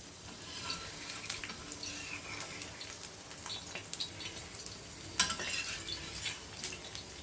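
Paratha frying in a generous layer of hot oil on a concave dosa tawa: a steady sizzle with scattered small crackles, and one sharper click about five seconds in.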